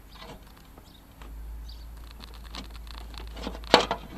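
Light clicks and knocks of a metal mounting plate and hardware being worked loose and handled on a wheeled string trimmer, with one sharp knock near the end. A low steady hum runs underneath.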